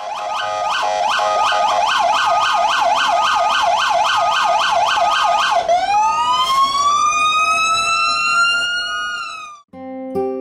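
Emergency vehicle siren on a fast yelp, rising sweeps about three a second, switching about halfway through to one slow rising wail that cuts off suddenly near the end. Acoustic guitar music starts right after.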